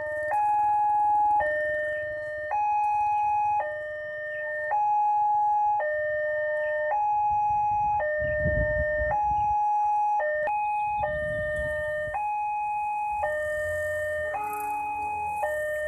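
Railway level-crossing warning alarm sounding a two-tone electronic chime, a higher and a lower tone alternating about once a second, which signals that a train is approaching and the barrier is down. A vehicle rumbles past about eight seconds in and again near eleven seconds.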